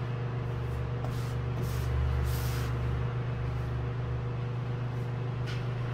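Steady low mechanical hum from a running machine, with a few faint soft scrapes in the first half.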